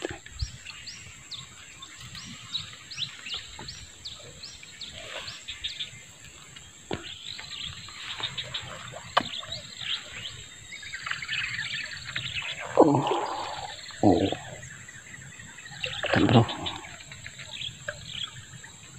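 Small birds chirping: a quick run of short, high, falling notes over the first few seconds, then scattered calls, with a steady high-pitched whine underneath.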